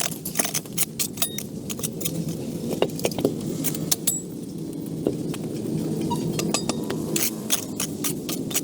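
Many sharp, irregular clicks and clinks of hard objects, coming thick in the first half and again near the end, over a steady low hum.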